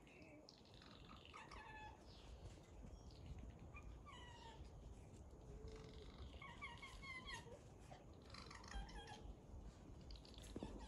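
Faint, short, high-pitched squeaky calls from a small animal, repeated every second or so, each falling in pitch.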